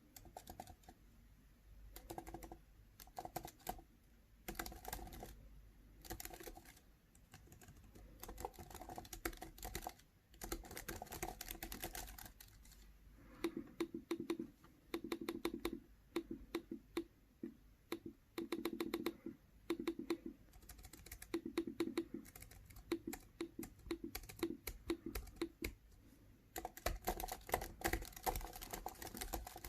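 Typing on a computer keyboard: rapid runs of key clicks in irregular bursts with short pauses between them, some strokes in the middle landing with a deeper thud.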